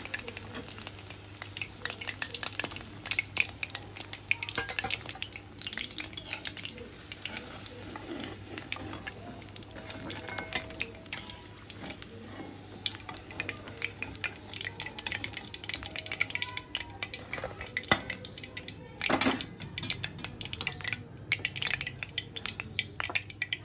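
A perforated steel spoon clinking and scraping against a kadhai and a steel plate as fried jackfruit pakoras are lifted out of hot oil, which sizzles underneath. There is a louder clatter about nineteen seconds in.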